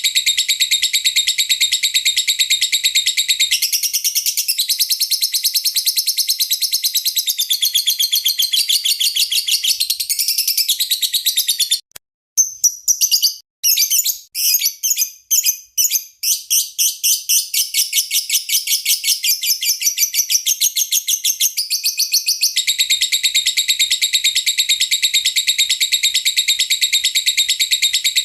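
Lovebird singing a fast, unbroken run of high chirps, broken briefly about twelve seconds in; masteran song used for training caged songbirds.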